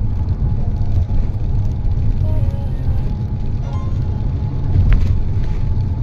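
Steady low rumble of a car on the road, with faint music in the background.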